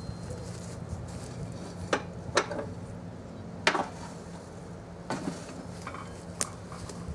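Scattered light metallic clanks and knocks, about five over several seconds, as the iron workpiece is handled with tongs and returned to the coal forge to reheat. A steady low hum runs underneath.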